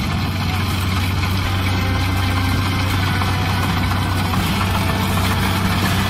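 Kubota DC-70 combine harvester's diesel engine running steadily while the machine cuts and threshes rice: a constant low engine drone under a dense mechanical noise.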